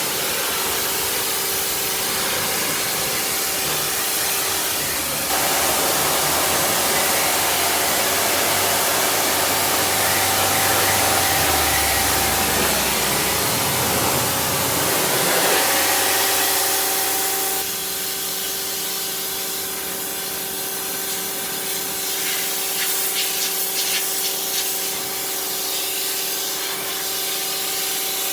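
Stanley pressure washer running, with its motor humming steadily under the hiss of the high-pressure water jet hitting a surface. The spray gets a little louder about five seconds in and changes tone about two-thirds of the way through, as the jet moves over the surface.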